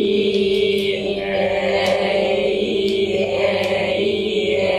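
A class of students chanting long English vowel sounds together in unison, /i/ and /e/, drilled from a vowel colour chart. The voices hold each vowel steadily and shift from one vowel to the other a few times.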